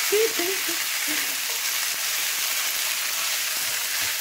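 Fried rice with rendang sizzling steadily in a hot non-stick frying pan while a spatula stirs and turns it, scraping through the rice.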